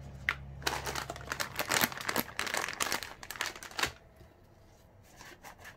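A plastic packet crinkling as gloved hands handle it, a dense run of crackles from about half a second in that dies down near four seconds.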